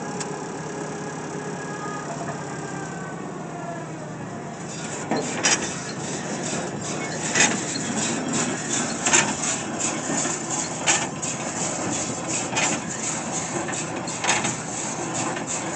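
Tractor engine running, then about four and a half seconds in the PTO engages and a New Holland Hayliner 67 baler starts turning over. Its mechanism runs with repeated irregular clanks and knocks. The baler is working as it should, with no odd noises.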